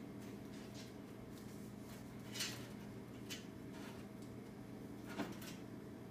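A hand handling dry thatch on the test tunnel: three short, soft rustles, the loudest about five seconds in, over a steady low hum.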